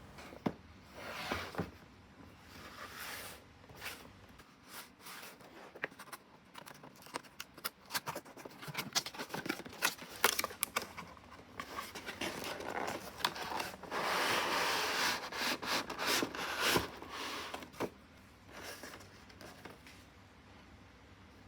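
Packaging of a 1:18 scale model car box being handled and opened: irregular scraping, scratching and clicks of cardboard and plastic, with a longer, denser stretch of tearing or cutting about two-thirds of the way through.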